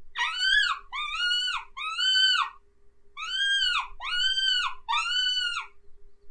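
Mouse-squeak predator call: drawn-out squeaks, each rising and then falling in pitch, imitating a mouse in distress. Six squeaks come in two groups of three, with a short pause after the third.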